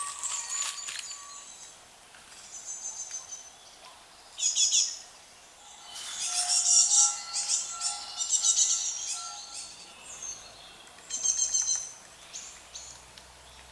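Early-morning dawn chorus of several songbirds: bursts of high chirps and trills every second or two, with a few lower whistled notes around the middle, where it is loudest.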